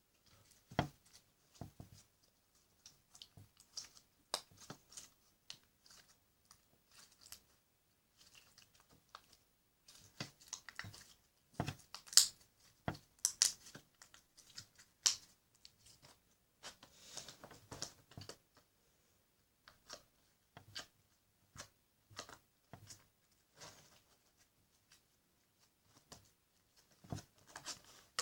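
Clear slime being squeezed and stretched by hand, giving irregular popping and crackling clicks, a few louder pops near the middle.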